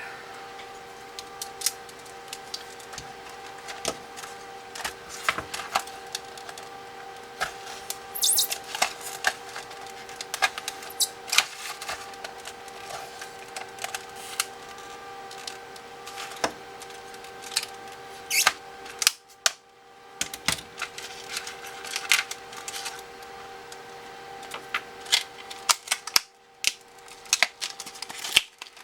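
Small hand tools and parts being picked up and set down on a workbench: irregular clicks, taps and light knocks throughout, over a steady faint hum.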